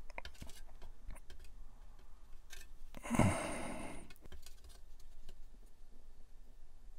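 Small plastic model parts being handled and fitted together, giving faint scattered clicks and taps. A short breathy exhale comes about three seconds in.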